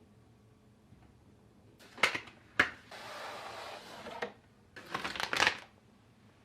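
Hands handling computer parts or their packaging: two sharp clicks, then a second or so of rustling, then a quick run of clicks and rattles.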